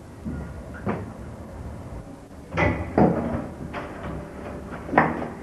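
A handful of separate knocks and bumps, the loudest a pair about two and a half to three seconds in and another near the end, over a low background hum.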